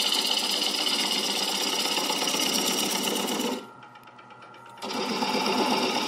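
Wood lathe turning while a bowl gouge cuts into the base of a spinning bowl blank, making a fast rhythmic rasping chatter as the shavings peel off. The cut is shaping a tenon for a chuck. The cutting stops about three and a half seconds in, leaving only a faint hum, and starts again about a second later.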